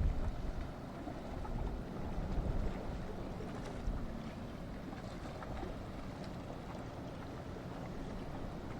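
Boat engine running steadily on the open water, with wind on the microphone swelling in gusts at the start and again about two seconds in.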